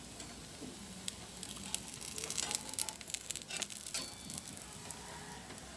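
Banana pancake batter sizzling in a nonstick frying pan. It is a fine crackling that builds about a second in, is loudest around the middle, and dies down after about four seconds.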